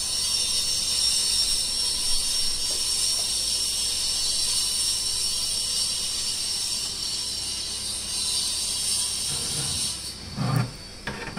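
Steady hiss with some fixed high tones. About ten seconds in the hiss drops and a few short knocks and rustles follow, from computer hardware being handled in the case.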